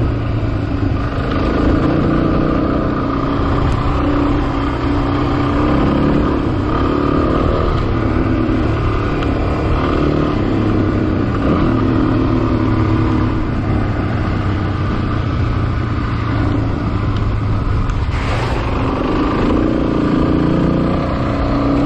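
Motorcycle engine running at a steady pace on a dirt road, with a short rush of noise about eighteen seconds in.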